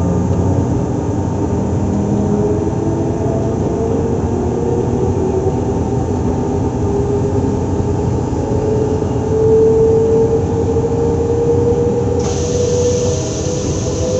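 SNCF Z 20500-series (Z2N) double-deck electric multiple unit Z 20851 standing with its on-board equipment running: a steady mix of hums and whines, one tone rising slightly about nine seconds in. About twelve seconds in, a steady hiss starts suddenly.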